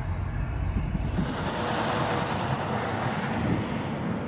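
Vehicle traffic across a truck-stop parking lot: a low rumble, giving way about a second in to a rushing sound that swells and then eases off.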